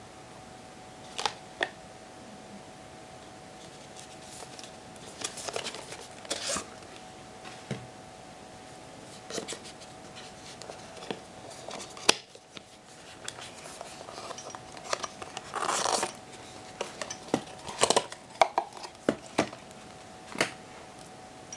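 Cardboard and paper watch packaging being handled and opened: scattered taps, clicks and short scrapes and rustles, with a longer scraping rustle about two-thirds of the way through. A faint steady hum sits underneath.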